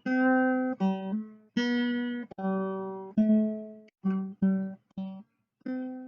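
Guitar music: a run of about eight picked or strummed chords, each struck and left to ring and fade, the last chord ringing out near the end.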